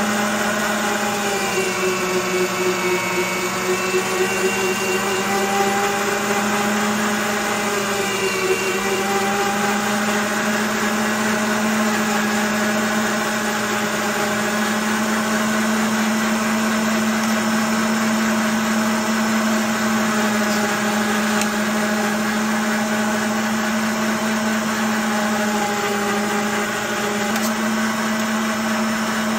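Electric meat grinder running steadily with a continuous motor hum while cooked pork is pushed through it. The pitch dips briefly about a second in and again around eight seconds in as meat is fed down the throat.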